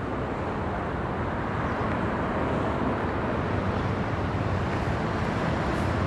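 Steady outdoor background noise: an even, low rumble like distant traffic.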